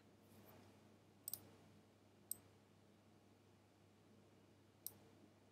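Three quiet computer mouse clicks, well spaced, over a faint room hiss.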